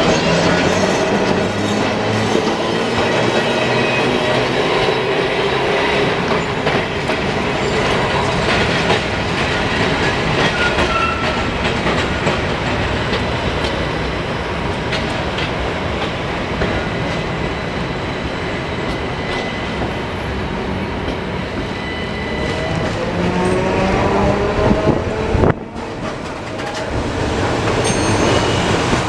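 Milan street trams running on the rails, with wheels clattering over the track. A little before the end a tram's motor whine rises in pitch as it speeds up.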